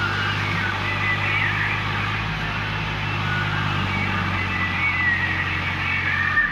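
Farm tractor's diesel engine running steadily, with voices of people in the background; the sound cuts off abruptly near the end.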